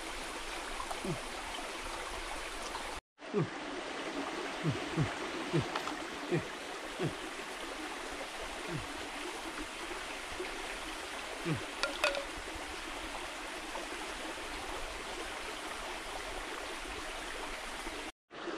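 Shallow forest stream running steadily over rocks, with short low sounds falling in pitch scattered through. The sound cuts out for a moment twice.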